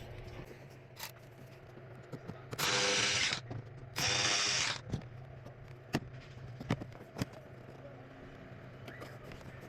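Two short bursts of a cordless power tool running a bolt on a BMW cabin filter cover, each under a second and about half a second apart, with a few light clicks and taps before and after.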